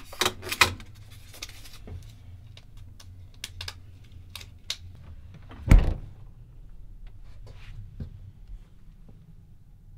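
Scattered clicks and light knocks from a SunDanzer chest freezer being handled, with one heavy thump a little before the six-second mark.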